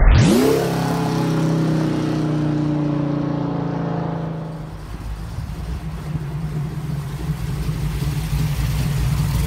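1968 Ford Mustang's 363 cubic-inch stroked small-block V8 revving hard as the car accelerates away. Its pitch climbs sharply in the first half second, holds a steady high note, and fades with distance. From about five seconds in, a lower, steady engine rumble takes over.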